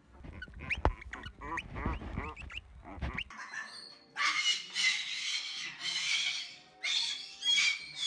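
A husky making whining, talking vocal sounds for about three seconds. Then a white cockatoo gives a series of loud, harsh squawks, about five in a row.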